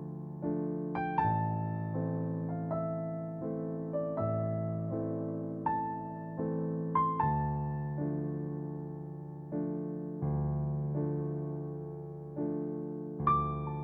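Slow, soft piano music: single struck notes and held chords every second or so, each fading away before the next.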